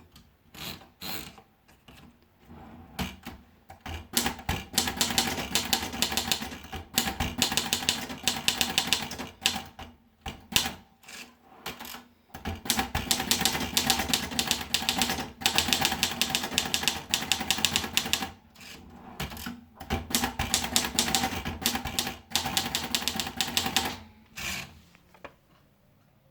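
Erika Model 10 portable manual typewriter being typed on. A few scattered keystrokes come first, then three long runs of fast keystrokes with short pauses between them, and a few single strokes near the end.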